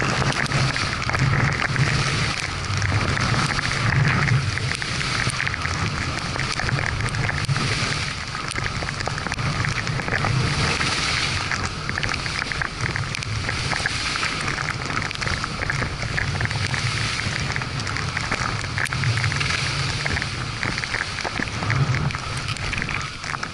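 Skis running and scraping over packed snow on a downhill run, with wind buffeting the microphone in low gusts that swell and fade every second or two.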